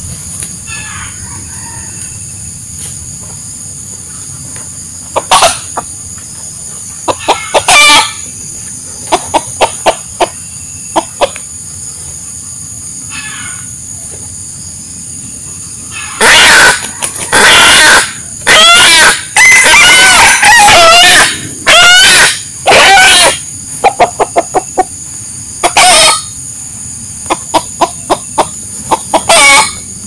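Wild rooster calling: scattered short clucks at first, then a run of loud crowing and calls a little past halfway, followed by more sharp clucks.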